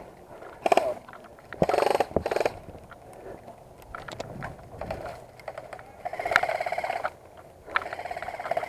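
Airsoft guns firing on full auto in a run of separate bursts: a short one, two quick ones about a second later, then a longer burst of about a second, and another starting near the end. Each burst is a fast buzzing rattle of shots.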